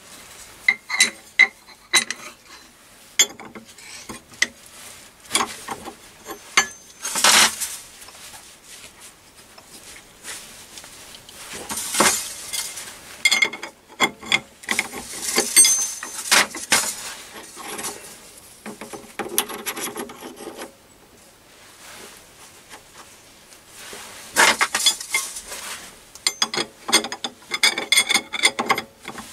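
Metal clinks and clatter of lathe tooling being handled: a steel bolt being taken out of a collet chuck and set in another, with a spanner on the collet nut near the end. A fast run of clicks comes near the end.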